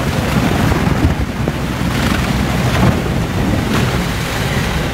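Loud rushing and splashing as a SHERP amphibious ATV's giant tyres churn through slushy water and snow, with a low vehicle drone underneath.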